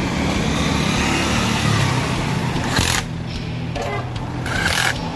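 Cordless drill run in two short bursts, about three seconds in and near the end, driving the clamp bolts of a motorcycle brake master cylinder on the handlebar. A steady rumbling noise fills the first three seconds.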